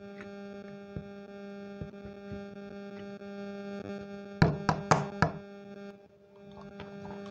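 Glass jar of slime knocking against a wooden table: four sharp knocks in quick succession about halfway through, after a few faint taps, over a steady background hum.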